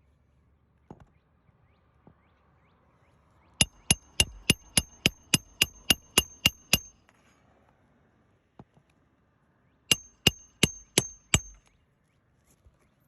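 Hammer driving roofing nails through asphalt shingles: a quick run of about a dozen ringing metal strikes at roughly three a second, then a pause and five more strikes.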